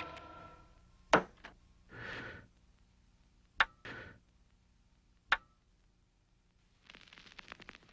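A record player being worked by hand: three sharp mechanical clicks, two short whirring swells, then fine crackle from the stylus on the vinyl near the end.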